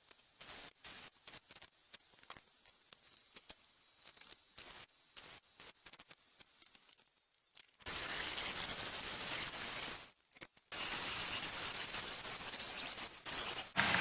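Arc welding on a steel trike frame: two runs of steady sizzling hiss, each about two and a half seconds long, with a short break between them, in the second half. Before them come only faint scattered clicks.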